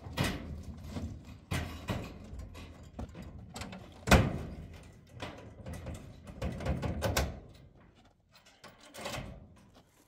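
Irregular knocks and clatters, the loudest a sharp knock about four seconds in, with a quicker run of them around seven seconds, dying down to fainter taps after about eight seconds.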